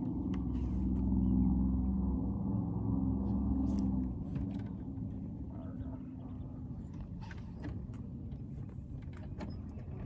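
An engine running steadily with a low drone that drops away abruptly about four seconds in. After it come scattered light clicks.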